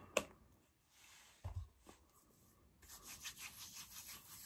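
Palms rubbing together in quick, repeated strokes, spreading a dab of beard butter between the hands; the rubbing starts about three seconds in. Before it come a sharp click and a short, dull knock.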